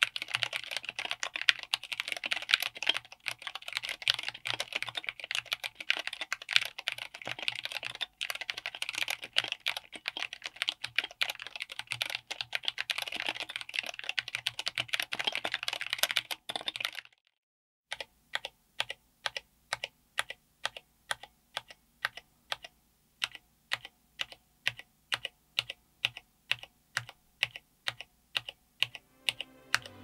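Mechanical keyboard with Cherry MX Black Clear-Top (Nixie) linear switches, SA-profile ABS keycaps, an FR4 plate and an aluminium case. It is typed on fast with two hands for about the first seventeen seconds. After a short pause come slow single keystrokes, about two a second, each key bottoming out on its own.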